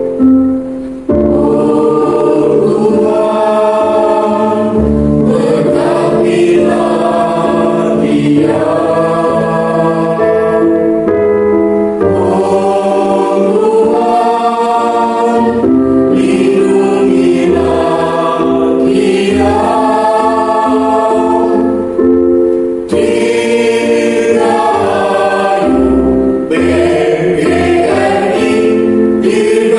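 Elementary-school children's choir singing a song in held, sustained phrases, with short breaks between phrases about a second in and again past the middle.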